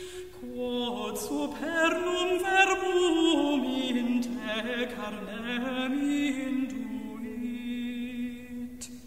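Meditative background music: a single voice chanting slow, drawn-out notes with vibrato and gentle pitch glides, fading out near the end.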